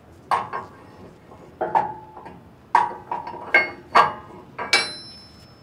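Steel locking pins being fitted into a steel axle and coupler frame: several sharp metallic clinks and clanks, some ringing briefly.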